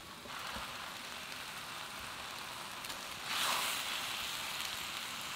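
Noodles, chicken and vegetables sizzling in a hot wok as they are stir-fried and tossed with tongs. The sizzle gets louder about three seconds in.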